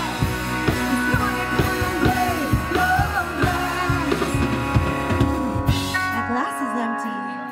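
Live rock band playing: drum kit beating steadily under electric guitars and sung vocals. About six seconds in the drums and bass stop, leaving a held chord that fades.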